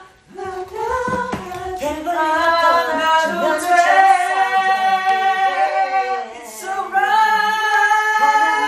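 Several voices singing together with no instrumental backing, holding long notes. There is a short break a little past six seconds in before the singing picks up again.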